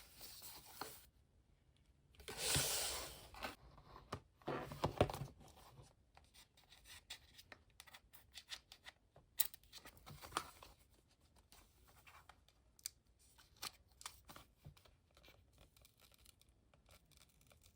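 Paper and cardboard packaging of an Apple Watch band being torn open: two tearing rips, about two and five seconds in, then soft scratchy rustling and small clicks as the box and band are handled.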